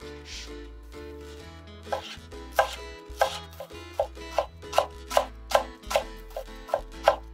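Kitchen knife slicing a rolled bundle of shiso leaves into thin strips on a wooden cutting board: a soft rustle of the leaves being rolled, then from about two seconds in a steady run of crisp chops, two to three a second.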